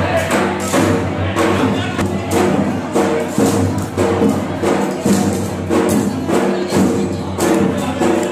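Live festival music: hand percussion struck about twice a second over steady held notes from a melodic instrument.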